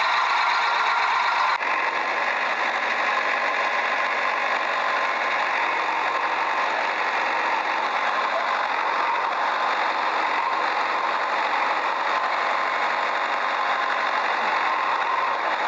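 Steady engine-like running noise, with an abrupt cut to a slightly different texture about a second and a half in.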